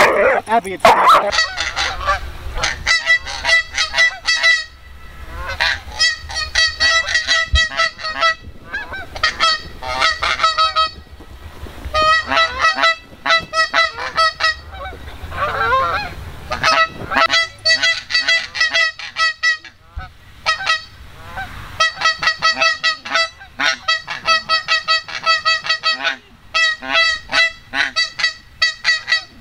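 A flock of geese honking in flight: rapid volleys of overlapping honks from several birds, broken by short pauses.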